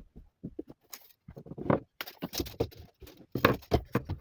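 Wooden workpieces and tools being handled and set down on a bench: a quick, irregular series of light knocks and clatters, busiest in the second half.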